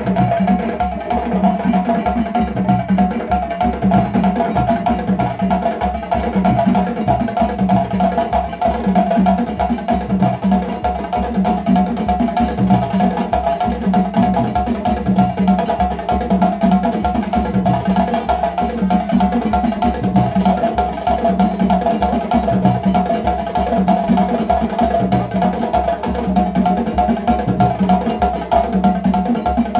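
Ensemble of djembe hand drums playing a fast, unbroken interlocking rhythm at a steady level.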